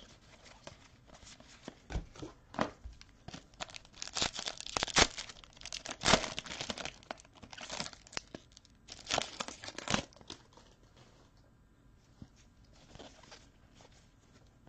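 A trading-card pack wrapper being torn open and crinkled, in a run of sharp rustling bursts from about four to ten seconds in, then softer handling of the wrapper and cards.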